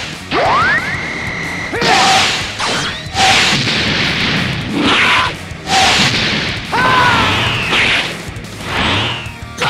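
Dubbed fight sound effects. A rising energy-charge whine settles into a held high tone, then comes a quick run of whooshes and impacts with falling swooshes, about one a second.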